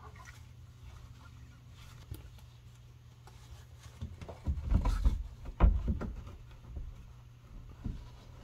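A car's underbody service access panel being handled and fitted back into the underbody cover: light rustling at first, then a cluster of knocks and rattles around the middle as the panel is pushed into place, and a few light clicks near the end. A steady low hum runs underneath.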